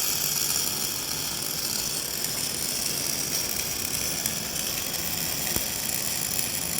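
Electric welding arc running steadily with a dense crackling hiss, with an occasional faint click.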